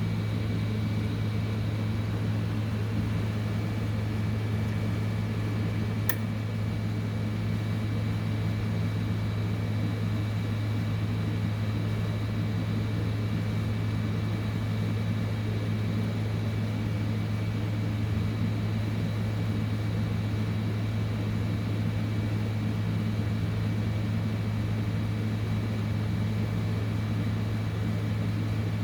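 Hot-air heat gun's blower running steadily with a low hum and a faint high whine, with a single sharp click about six seconds in.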